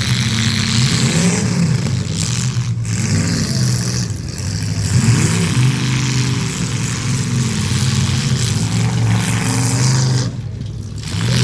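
Demolition derby cars' engines running in the arena, a steady low drone with the revs rising and falling several times.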